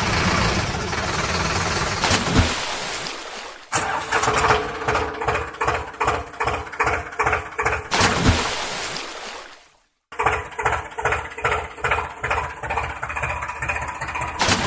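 Tractor engine sound: an engine running, then starting and chugging evenly at about three to four beats a second. It cuts out suddenly just past the middle and starts up again at once.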